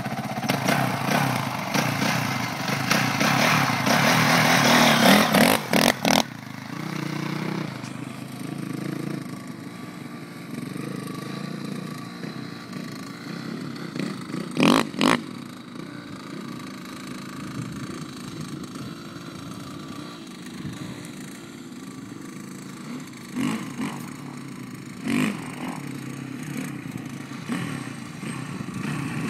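Honda CRF450 dirt bike engine running loud and close for about the first six seconds. It then carries on fainter and farther off as the bike is ridden away, and grows louder again near the end as it comes back. A few brief sharp noises cut in around the middle and later on.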